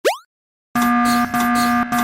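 A quick rising zip, then a Japanese railroad crossing warning bell ringing in steady repeated strokes about every half second.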